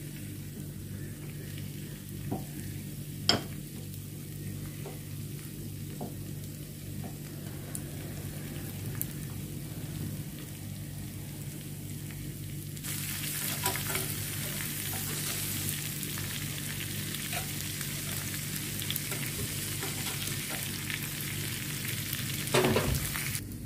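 Onion rings, tomato halves and green beans frying on a hot ridged grill pan over a steady low hum. In the first half the sizzle is faint, with a few sharp clicks as pieces go onto the pan, the loudest about 3 s in. Just past halfway the sizzle jumps suddenly to a loud, steady hiss, and a knock comes near the end.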